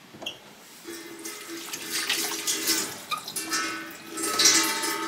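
Kitchen tap running, with water splashing, growing louder about a second in and swelling twice.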